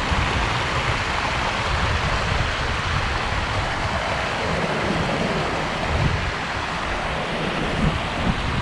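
Wind buffeting the microphone in uneven gusts, over the steady rush of flowing trout-stream water.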